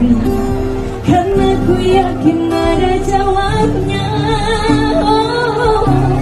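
Women singing into handheld microphones over accompanying music.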